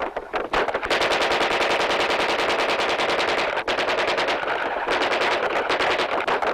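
Sustained rapid machine-gun fire in long bursts, with a brief break near the start and another about five seconds in.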